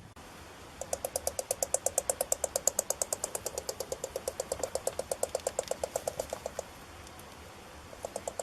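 Porcupine making a rapid, even run of clicks, about eight a second, for nearly six seconds. A shorter run starts again near the end.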